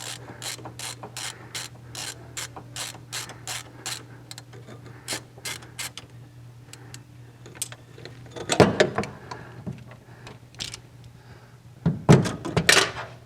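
Ratchet wrench clicking in a steady rhythm, about three clicks a second, as fasteners on the VW engine's intake crossover are backed off; the clicking thins out, with a few louder metallic knocks and clatter later on.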